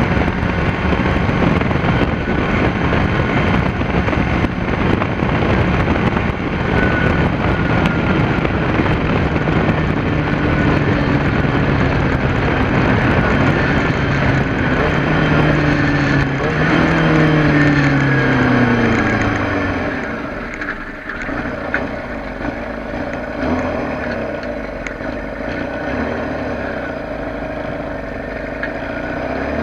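Kawasaki ZR-7's air-cooled inline-four running at steady road speed with wind rushing over the onboard microphone. About two-thirds of the way through, the engine note falls as the bike slows, leaving a quieter, lower engine sound.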